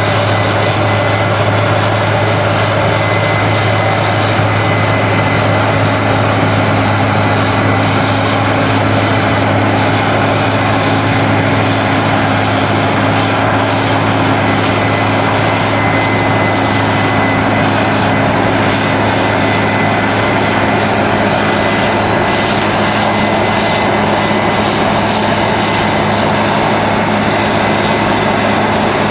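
Case IH combine harvester at work cutting and threshing a cereal crop: a steady, unbroken drone of its engine and threshing machinery, with a thin high whine running over it.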